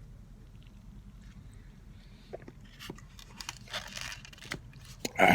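Eating sounds at a meal: faint chewing and the crinkle and rustle of fast-food packaging, with scattered light clicks, a few short hissy rustles in the middle and a louder brief rustle near the end.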